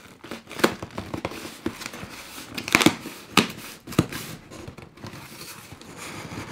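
Corrugated cardboard box lid being worked open by hand, the flap scraping and crackling as it is pulled free of the cut tape, with a few sharper cracks.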